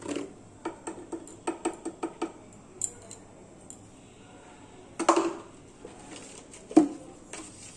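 Light, quick taps, about four a second, of a plastic spoon against a stainless steel mixing bowl as turmeric powder is added. A louder knock comes about five seconds in, and a sharp click near the end.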